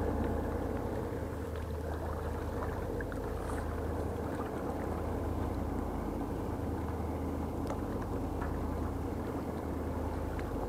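Steady low engine drone of a river tug passing out on the water, with a few faint ticks over it.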